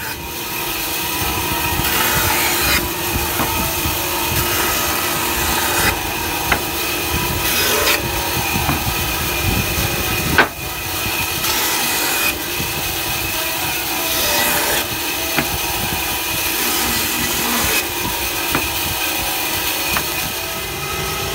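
Band saw running and cutting wooden blocks, a steady motor and blade noise with a few sharp knocks, the loudest about halfway through.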